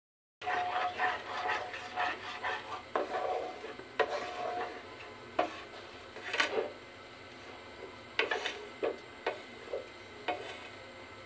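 Wooden spatula stirring and scraping melting sugar and butter around a nonstick frying pan: a run of rasping strokes with small knocks against the pan, quick at first and then more spaced out. The sugar is melting down to caramelise with no water added.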